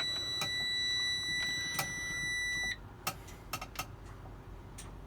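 Truck dashboard warning buzzer sounding one steady high tone for nearly three seconds as the key is switched on before starting, then cutting off suddenly, followed by a few light clicks.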